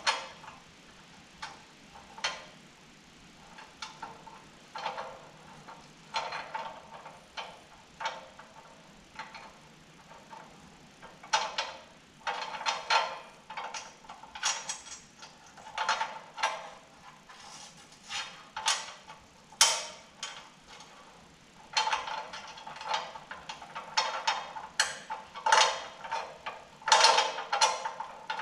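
Hand ratchet wrench clicking as a bolt is tightened: spaced single clicks at first, then from about a third of the way in, quicker runs of ratcheting strokes.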